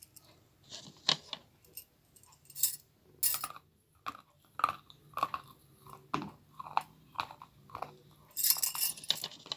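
Wet slate pencils being bitten and chewed: a string of sharp, gritty crunches, roughly one or two a second, with a denser, louder grinding run near the end.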